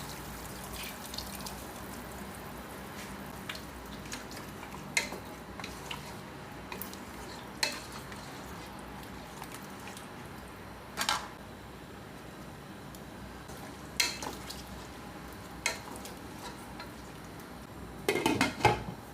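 Beef curry with coconut cream cooking in a pot with a steady sizzling hiss, while a utensil stirs and knocks against the pot every few seconds, with a quick run of clanks near the end.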